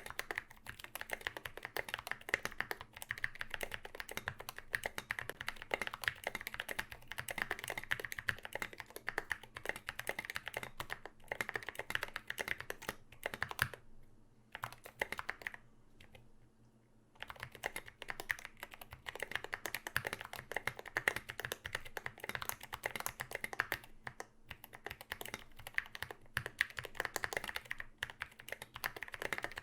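Fast, continuous typing on a KBD75v2 aluminium-plate mechanical keyboard fitted with Zealios v2 65g tactile switches and SA doubleshot ABS keycaps. The typing pauses for about three seconds around halfway, then carries on.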